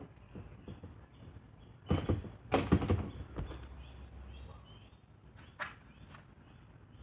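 A cluster of knocks and thumps about two seconds in, lasting roughly a second and a half, with a few single clicks later, from work being done on the box fan nearby. Faint bird chirps can be heard in the background.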